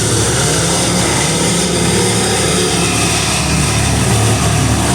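Tree-removal machinery engine running steadily and loudly, with a low, even drone and a broad rushing noise over it.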